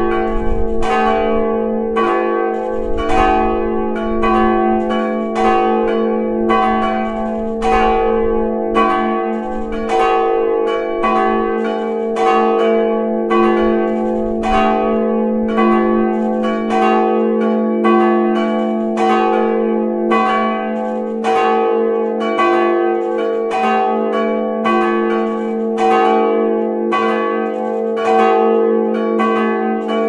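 Full peal of three swinging bronze church bells, tuned roughly F♯¹, G♯¹ and C♯² and cast by the Fischer brothers of Trnava, ringing together. Their strokes overlap in a steady, irregular stream of strikes, a couple a second, over a continuous hum. Heard close up from inside the belfry.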